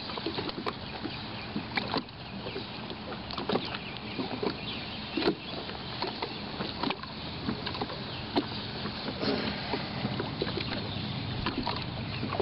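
Small waves lapping and slapping against the shore or pier, with irregular sharp splashes and a faint steady low hum underneath.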